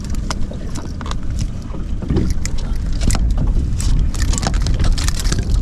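Steady low rumble of a small fishing boat at sea, with wind on the microphone and scattered light clicks and knocks.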